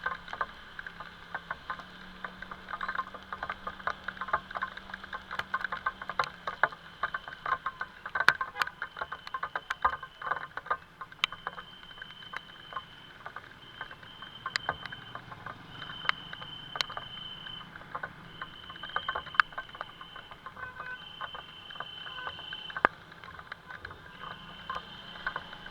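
Rain pattering, a dense run of irregular drip ticks with sharper single drops now and then.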